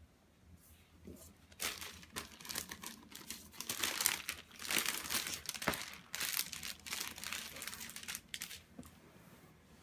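Clear plastic wrapping crinkling and crackling as it is peeled off a flat cardboard cat-toy box, busiest in the middle seconds and dying down near the end.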